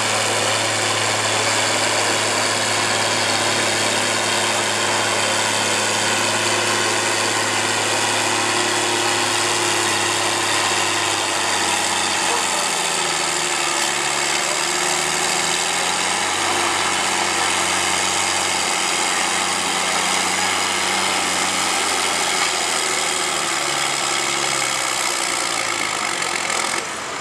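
John Deere 4230's six-cylinder diesel engine working hard under load while pulling a weight-transfer sled, at steady high revs. About eleven seconds in it comes off load, and the revs drop and wander as it runs on more slowly.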